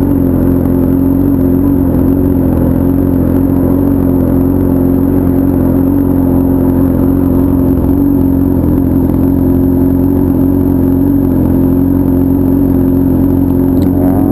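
Honda Hornet motorcycle's inline-four engine running loud through a 3-inch aftermarket exhaust, holding a steady note while cruising.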